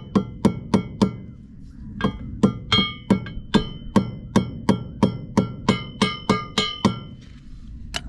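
Metal tapping a Woodruff key into the keyway of a boat's propeller shaft: a run of sharp metallic taps, each ringing briefly, about three or four a second. There is a pause about a second in, the taps stop around seven seconds, and one last tap comes near the end.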